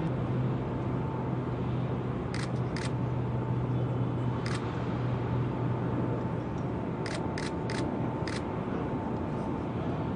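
A steady mechanical hum with a low held tone, broken by about seven short sharp clicks: two about two seconds in, one near the middle, and a quick cluster of four in the second half.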